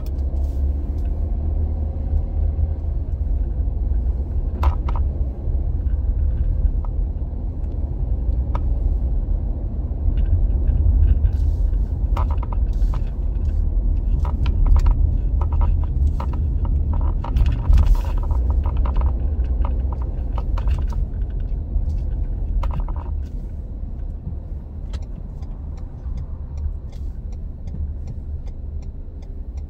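Car interior driving noise: a steady low rumble of engine and tyres, with light rattling and clicks through the middle. Near the end the rumble eases as the car slows, and a regular ticking of about two a second sets in, like a turn signal.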